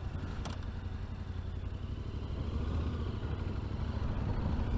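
Yamaha Ténéré 700's stock-exhaust parallel-twin engine running steadily while riding, a low, even drone that grows slightly louder toward the end.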